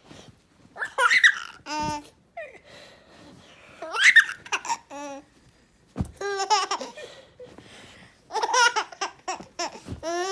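Six-month-old baby laughing hysterically in about four bursts of high-pitched laughter, each a quick run of pulses, with short pauses between them.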